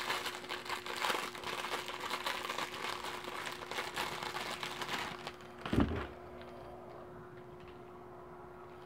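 Clear plastic wrapping on a small packet of blackhead pore strips crinkling as it is handled, for about five seconds. A short thump follows about six seconds in, then only a faint steady hum.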